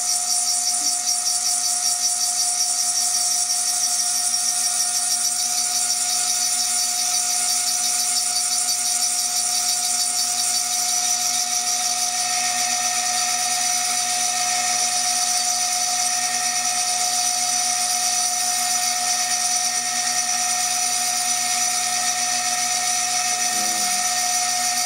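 CNC milling machine spindle running steadily with a high-pitched whine as a sharp reground cutter engraves the glass of a beer bottle.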